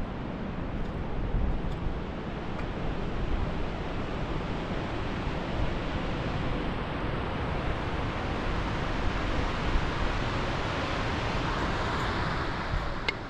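Rushing water of a fast, silty mountain river running over rocks, a steady roar that grows louder near the end, with wind buffeting the microphone.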